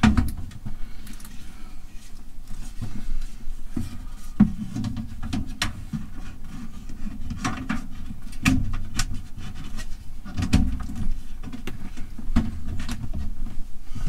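Scattered knocks and clicks of a wooden cupboard door and panel in a motorhome kitchen being pushed into place and handled, with a sharp knock at the very start and a few louder knocks spread through.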